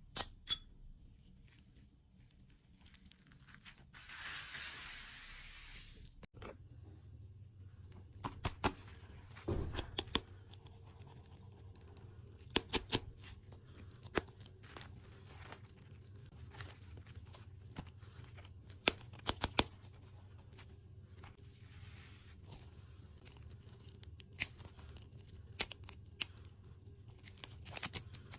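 Close-up crackles and sharp clicks from handling and eating dessert food, with a brief tearing rustle about four seconds in.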